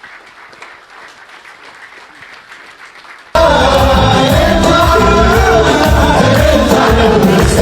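Audience applauding, then about three seconds in a recorded worship song with singing and heavy bass starts abruptly, much louder than the applause.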